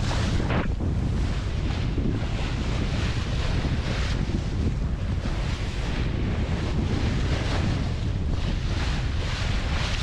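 Wind buffeting the microphone over the rush and splash of a sailing yacht's bow wave along its hull, the spray hissing up in irregular surges.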